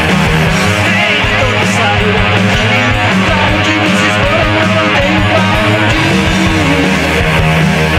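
Loud, guitar-led rock song with strummed guitars over a steady beat.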